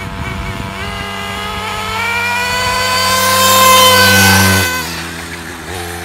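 A 1/8-scale nitro RC buggy engine and a 50cc Goped scooter engine at full throttle in a drag race. The engine note climbs steadily in pitch and grows louder, then drops off sharply past the four-second mark.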